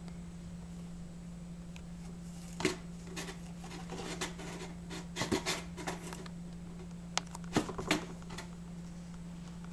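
Birman cats scrabbling against a cardboard box: scattered short scratches and scrapes of claws and fur on cardboard, in clusters a few seconds in, around the middle, and near the end, over a steady low hum.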